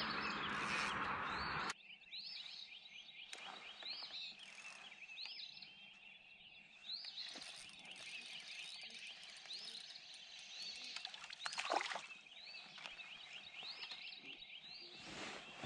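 A chorus of high, repeated chirping calls from small animals. It opens under a louder rushing noise that cuts off abruptly about two seconds in, and a couple of faint knocks come later.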